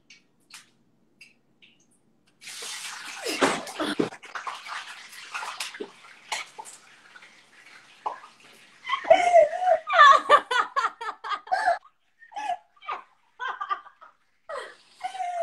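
Hot oil in a frying pan sizzling loudly as wet plantain slices, soaked in salt water, are thrown in. The sizzle starts suddenly a couple of seconds in and dies down over about three seconds. Then two women laugh hard.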